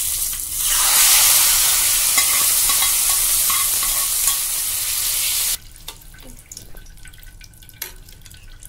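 Hot tempering oil with cumin, mustard seeds, dried red chillies, garlic and curry leaves sizzling loudly as it is poured into ambade ki chutney (sorrel-leaf and chana dal chutney) in a steel pot. The sizzle stops abruptly about five and a half seconds in.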